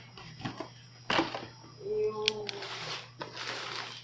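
Cardboard router box and its tray being handled: a sharp knock about a second in, a few lighter taps, then cardboard rubbing and sliding as the router is lifted out near the end. A steady low hum runs underneath.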